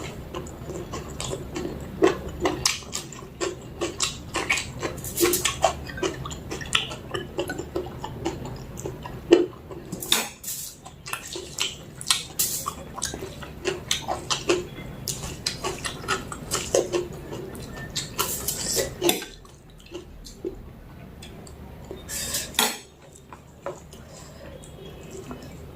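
Eating mutton curry with rice: many small clicks and scrapes of food being taken from a plate, mixed with chewing. It goes quieter for a few seconds near the end, broken by one louder clatter.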